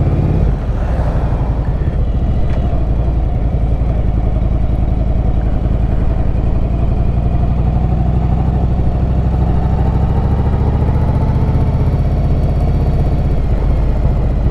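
Yamaha Virago 1100's V-twin engine and exhaust running steadily while the motorcycle is ridden along the road, with a brief dip in level about half a second in.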